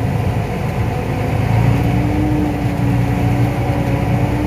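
Tractor engine running steadily, heard from inside the cab, with a low drone; a steady whine joins in about a second and a half in.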